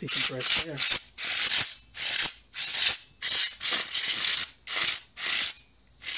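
Can of compressed air duster sprayed in short bursts of hiss, about two a second, through its straw into a CPU cooler's heatsink fins and fan, blowing out the dust.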